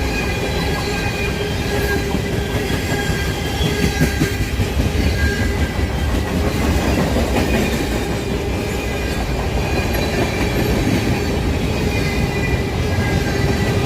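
CSX freight train cars rolling past with a steady low rumble. Thin, steady squealing tones come from the wheels on the rails.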